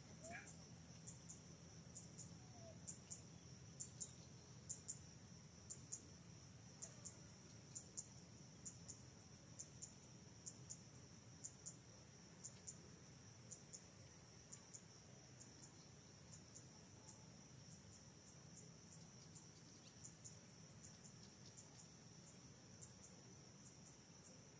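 Faint, steady chorus of forest insects: a continuous high-pitched trill with short sharp chirps dotted over it, a few a second.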